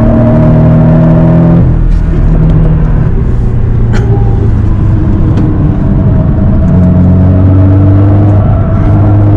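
Porsche 718 Boxster's engine heard from inside the cabin on track: pulling steadily, easing off about one and a half seconds in, then pulling again from about seven seconds in with the pitch climbing slightly. A single faint click about four seconds in.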